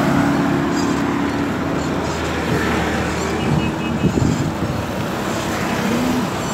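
Steady engine and road noise of a moving vehicle, heard from on board.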